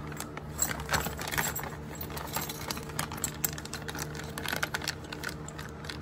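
Small metal hardware (washers and nuts) clinking in a clear plastic bag as it is handled, with the bag crinkling: a run of light, irregular clicks and rustles.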